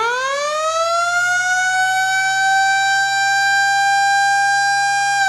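Siren winding up from low to a steady high pitch and holding it, starting to wind down right at the end: the school's signal calling students to assemble on the field.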